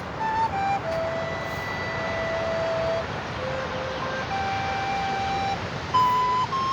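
Flute playing a slow melody in single held notes, with a few quick shorter notes in the middle, over a steady hiss.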